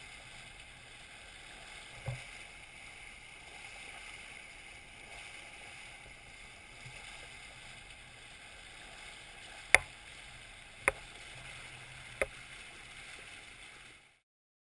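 Sea water rushing along the hull of a sailing yacht under way, a steady hiss with wind. There is a soft thump about two seconds in and three sharp clicks or knocks near the end, and then the sound cuts off.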